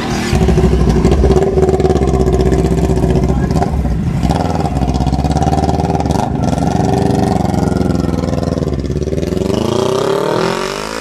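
Kawasaki Z400's parallel-twin engine running loud through an aftermarket exhaust at steady revs, then revving up in rising sweeps near the end as the bike pulls away.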